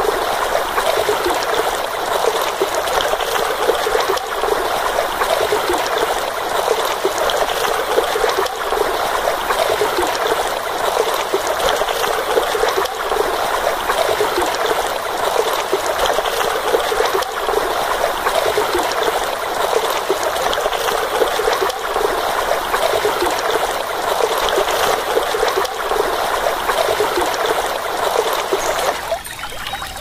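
Shallow stream trickling and rippling over stones, a steady, loud water sound. Near the end it drops a little in level and changes character.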